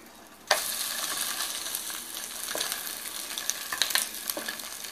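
An egg frying in margarine in a nonstick pan, sizzling. About half a second in the sizzle jumps up suddenly as the folded egg is flipped over onto the hot pan, and a few light clicks of the spatula against the pan follow.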